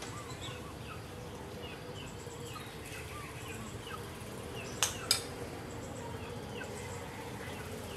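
Small birds chirping in the background, with two sharp clicks close together about five seconds in.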